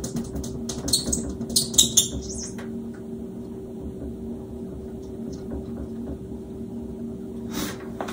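Oil-based paint marker tapping and scratching against mirror glass, with a quick cluster of strokes in the first two seconds and fainter ticks after, over a steady low hum.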